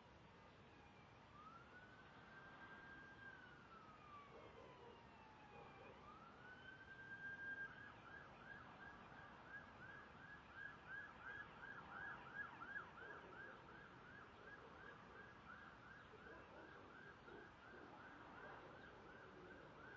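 Faint emergency-vehicle siren: a slow wail rising and falling for the first several seconds, then switching about seven seconds in to a fast yelp of about three pitch swings a second.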